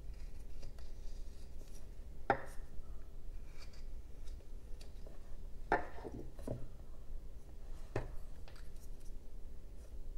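Hand carving knife cutting into a basswood block, with light scraping cuts and four sharp snaps or clicks, two of them close together past the middle, over a low steady hum.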